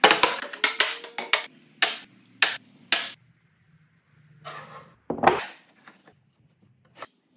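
Hardwood boards knocking as they are set down and laid out on a wooden workbench: about nine sharp wooden knocks over the first three seconds, then two brushing swishes about four and a half and five seconds in.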